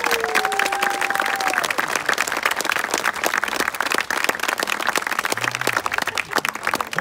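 Wedding guests clapping and applauding steadily, with a long cheer or whoop rising over the clapping in the first second and a half.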